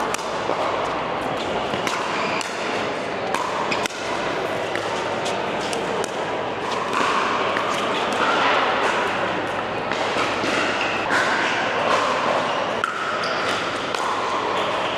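Pickleball play: paddles striking a hollow plastic ball, heard as many sharp pops and bounces scattered irregularly, over steady background chatter of voices.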